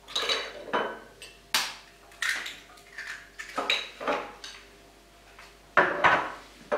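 Eggs being cracked against a stainless steel mixing bowl: a series of sharp taps and clinks, some with a short metallic ring, the loudest a little before the end.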